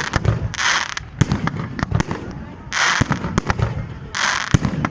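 Festive fireworks display: a rapid run of sharp bangs from bursting shells, with three short spells of hiss and crackle in between.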